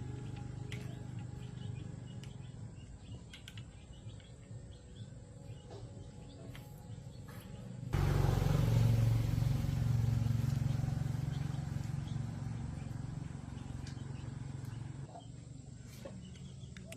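A steady low mechanical hum that jumps suddenly louder about halfway through and then slowly fades, with birds chirping now and then.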